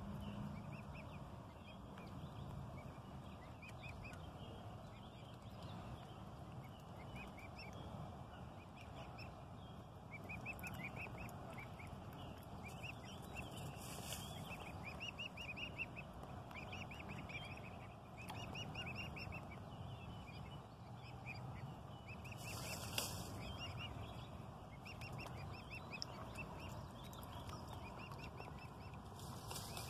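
Mute swan cygnets peeping: many short, high peeps in quick runs, over low steady background noise, with a few brief bursts of high noise.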